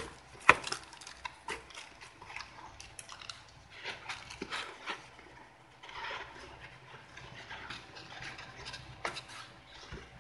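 Cardboard carton and plastic-wrapped packaging being handled: scattered knocks, scrapes and rustling, with one sharp knock about half a second in.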